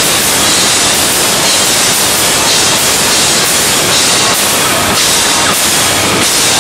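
A slappin' hardcore band of electric guitar, upright bass and drums playing live at full volume. The overdriven recording blurs it into a dense wash of distortion, with repeated cymbal crashes.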